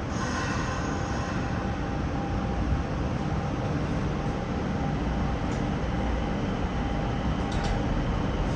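Nagoya subway 5050 series train running through a tunnel, heard from inside the front car: a steady low rumble of wheels on rail with a faint steady tone, and a couple of sharp clicks near the end.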